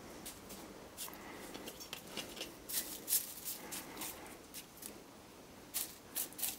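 A hand brushing and pushing loose plastic milling chips off a machine vise and a milled plastic block: faint, irregular rustling and scratching.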